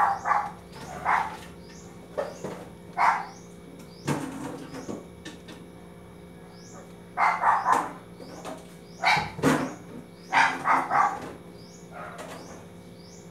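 A dog barking in short runs of two or three barks, on and off, over a steady low hum.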